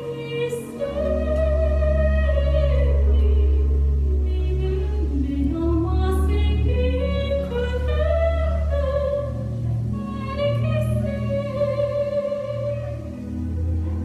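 A woman singing long, held notes with vibrato and slow sliding phrases over a backing track, with a deep sustained bass that comes in about a second in.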